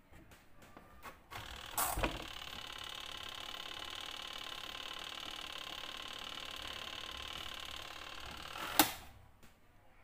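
Panasonic twin-tub washing machine: the spin timer knob is turned with a few clicks and a knock, then the spin motor runs with a steady whine for about seven seconds before a sharp click and it stops. The spin motor is being tested after its capacitor was replaced.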